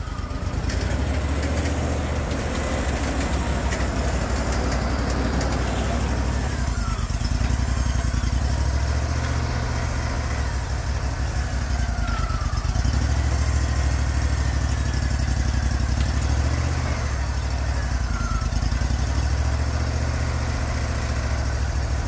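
Wood-Mizer portable band sawmill running steadily, its engine driving the band blade through a board. The sound rises slightly about half a second in and then holds.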